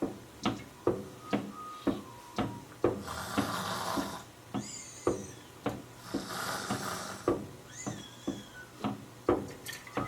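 Handmade foley effects: regular sharp clicks or knocks, about two a second, with two stretches of hissing and a few short high squeaks over them.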